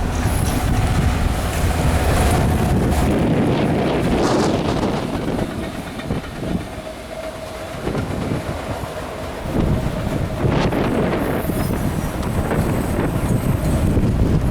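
CSX train passing at speed, its wheels running over the rail joints, with a brief dip in loudness about halfway through.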